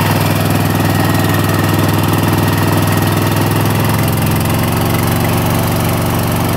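Engine of a fire suppression carrier's water system running steadily, a constant low drone.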